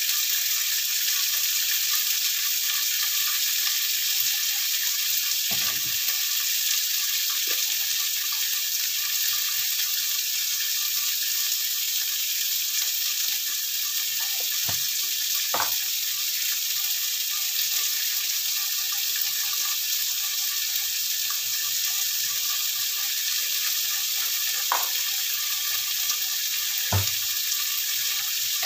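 Beef pieces, sliced cucumber and baby corn sizzling steadily in a frying pan, with a few sharp pops now and then.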